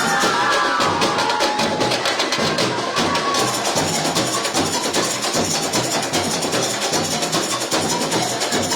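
Samba bateria playing a fast, dense percussion groove: a repeating low bass-drum pulse under rapid sharp drum and rattle strokes. A few falling pitched notes sound over it in the first couple of seconds.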